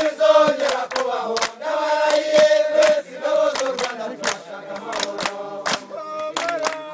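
A group singing a chant together, with hand claps keeping a steady beat of about two a second.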